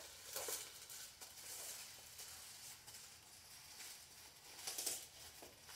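Faint rustling and crinkling of a clear plastic packing bag around a taillight as it is handled, a little louder about half a second in and again near five seconds.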